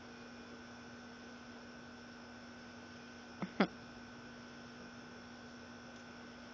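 Steady electrical hum over faint hiss, with two short clicks, the second louder, a little past halfway.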